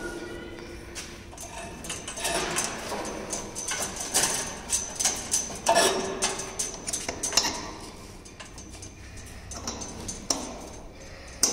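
Irregular metal clicks and clinks as a hose coupling is handled and fitted onto the valve on the stainless-steel door of a vacuum tumbler.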